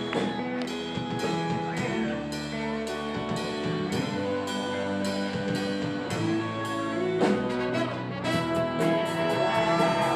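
Live band playing an instrumental passage: brass horns, trumpet and trombone, over a drum kit keeping a steady beat.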